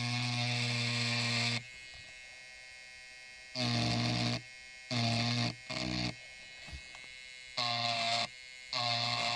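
Electric engraving pen buzzing against the side of the lock in short on-off bursts while the serial number is cut in: a long first burst of about two seconds, then four or five shorter ones about a second each.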